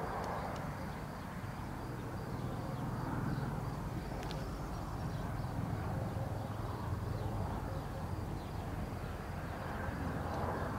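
Outdoor ambience: a low steady rumble with faint chirps repeating at an even pace.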